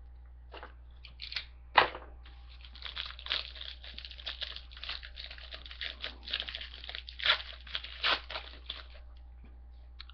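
A foil trading-card pack wrapper being torn open and crinkled, a few sharp crackles at first, then several seconds of continuous crinkling with louder peaks, stopping about a second before the end.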